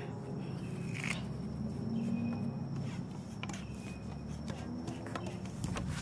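Low scraping and rustling as a wooden stick rams a potato down the barrel of a homemade potato gun, with a few faint clicks.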